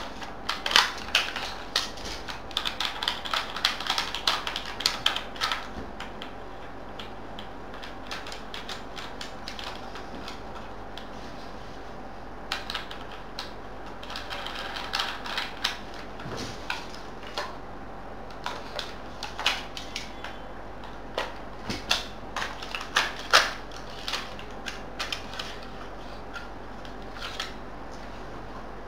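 Jing Gong airsoft HK416 replica being quickly taken apart and put back together by hand. Parts click, snap and knock against each other in dense runs of rapid clicks, with quieter handling between them.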